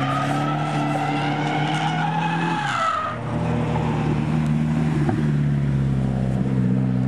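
Nissan S13 Silvia drifting, its engine held high in the revs with the tyres squealing. The engine note drops briefly about three seconds in, then picks up again and holds steady.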